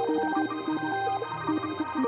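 Background music: a quick, bouncy electronic tune of short stepping synthesizer notes over a steady bass line.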